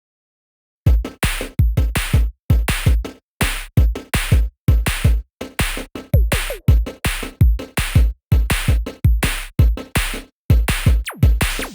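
Electronic music with a heavy drum-machine beat, kicking in about a second in after silence, with a few pitch-sweep effects.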